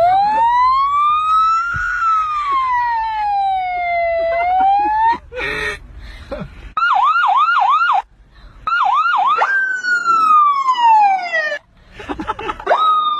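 Siren wailing: one tone sweeping slowly up and back down, then switching to fast yelps at about four a second, cut by two short breaks.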